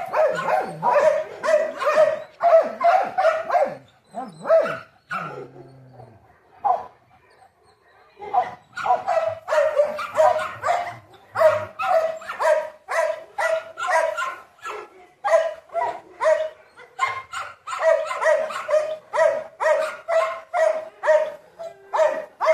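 A dog barking in quick, repeated, high-pitched barks, about two or three a second, with a pause of a few seconds about four seconds in before the barking starts again.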